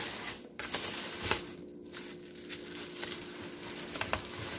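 Thin plastic grocery bag rustling and crinkling as it is handled, with a few sharper crackles.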